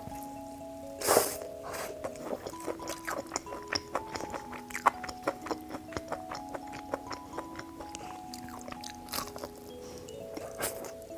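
Someone chewing crisp fried skewers: a close crunch about a second in, then many short crunches. Soft background music with held notes plays throughout.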